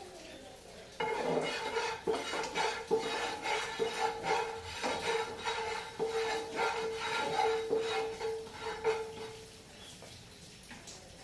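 Spatula scraping and stirring in a non-stick frying pan, with sharper knocks against the pan about once a second and a steady tone underneath. It starts about a second in and dies down near the end.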